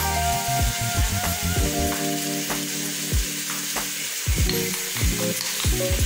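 A small knife cutting tomatoes against a plastic tray, making short irregular taps, over background music with held notes.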